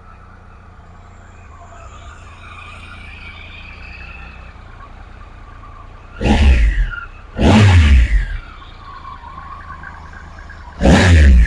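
Triumph Explorer XRT's 1215 cc three-cylinder engine idling, then blipped twice about six seconds in, each rev rising sharply and dropping back to idle. A third blip starts near the end.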